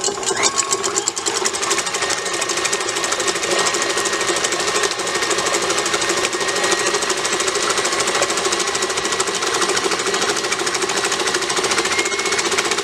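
Electric mixer running steadily, its beaters whipping raw eggs in a stainless steel bowl, with a fast, even rattle and a faint high whine.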